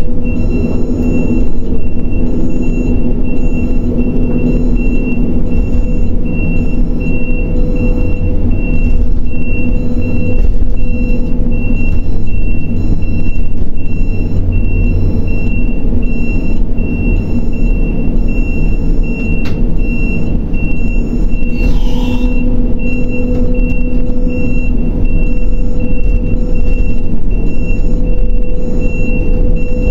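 Grab crane's engine and machinery droning steadily, with a high warning beeper pulsing throughout while the crane slews its clamshell grab. A short hiss about three quarters of the way through.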